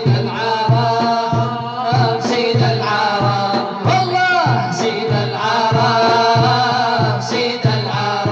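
Arabic nasheed music: voices singing a drawn-out melody over a steady, regular low beat.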